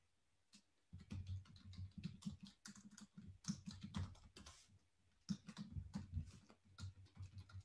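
Faint computer keyboard typing: a quick run of key clicks starting about a second in, a short pause near the middle, then a second run.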